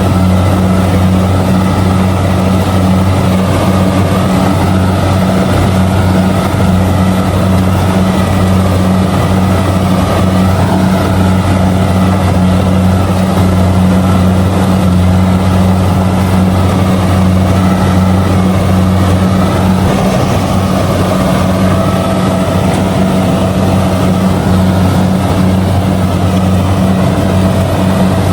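Kubota DC70G combine harvester running steadily while harvesting rice, its diesel engine and threshing machinery making a constant loud drone that holds the same pitch throughout.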